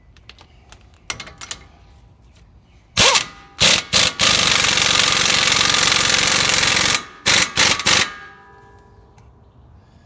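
Earthquake impact wrench hammering a lug nut down on a stud installer tool, pulling a new wheel stud into the hub flange until the installer cap seats. A couple of short bursts about three seconds in, then a continuous run of about three seconds, then a few more short bursts near the end.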